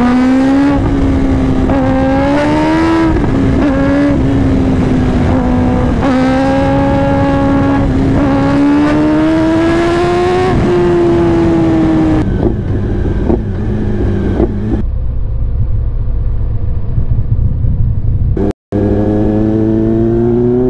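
Kawasaki ZX-10R inline-four engine under hard acceleration: the revs climb, dip and climb again, then drop about halfway through and run lower and rougher. Near the end the sound cuts out for an instant, and the engine revs climb again.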